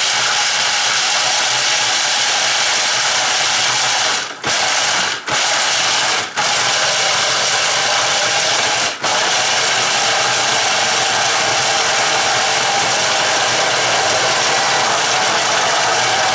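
Food processor grinding blanched almonds into crumbs, running steadily, with four brief dips in the sound between about four and nine seconds in.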